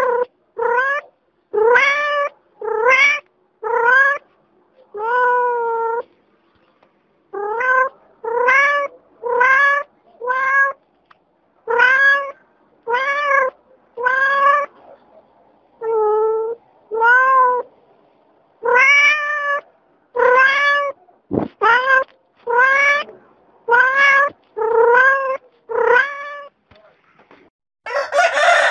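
A cat meowing over and over, about one meow a second, each meow rising in pitch at the start. Just before the end a rooster starts to crow.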